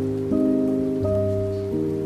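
Slow meditation music: soft sustained low notes that change about every three-quarters of a second, over a faint even hiss of rain.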